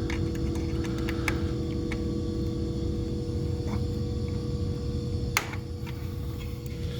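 Supermarket refrigeration compressor rack running with a steady low hum and a couple of steady tones. A few sharp clicks of tools or metal parts are heard, the clearest about five and a half seconds in.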